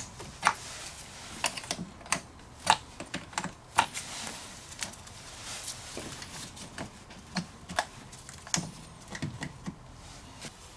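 Irregular metal clicks and taps of a hand wrench working on a car battery terminal clamp as the terminal is loosened for removal.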